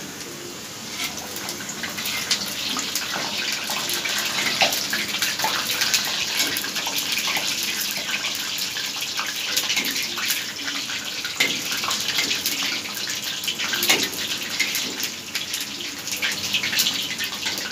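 Gram-flour onion pakoras deep-frying in hot oil: a steady sizzle full of small crackles and pops, growing louder about a second in.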